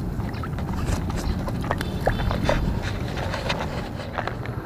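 Hands rinsing in shallow water: light splashes and drips over a steady low rumble.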